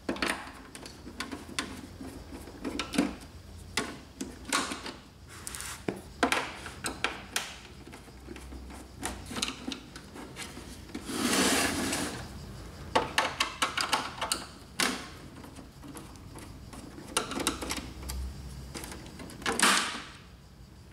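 Screwdriver and hands working on the plastic housing of an HP Deskjet 3055A printer: scattered clicks, taps and knocks of plastic, with a longer scrape about eleven seconds in and another near the end.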